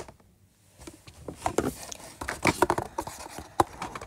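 Packaging being handled: a quick series of light taps, clicks and rustles that starts about a second in, after a near-silent moment.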